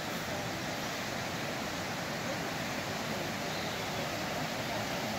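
Steady, even rush of flowing water from the outflow of Giant Springs.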